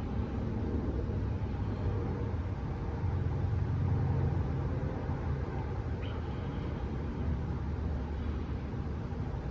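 Steady low rumble of outdoor background noise, with a brief high chirp about six seconds in.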